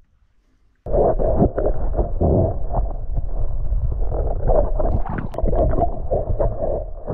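Muffled underwater sound of water gurgling and knocking, as heard by a camera under the surface. It starts suddenly about a second in, after near silence.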